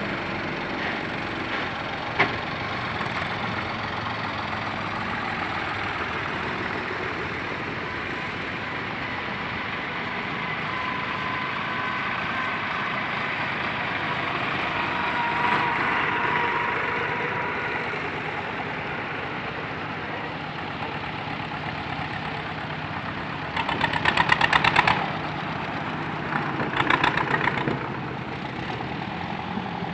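Old tractor engines running as tractors drive slowly across a gravel yard. About two-thirds of the way through come two louder, rapid runs of engine firing, each lasting about a second.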